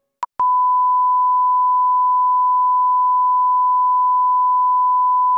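Television colour-bars test tone: a brief beep, then a single steady pure beep held unbroken at one pitch. It is the reference tone that goes with the colour-bars test pattern.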